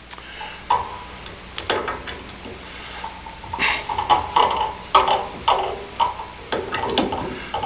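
Metal clicks and a run of short squeaks as a 5/8-inch four-flute end mill is handled and fitted into the chuck of a homemade milling machine. The squeaks come thicker after about three and a half seconds.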